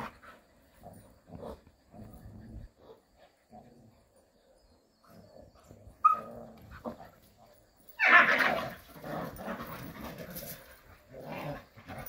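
Jindo dogs play-fighting, growling in short irregular bursts, with a brief lull and then a louder, rougher outburst about two-thirds of the way through.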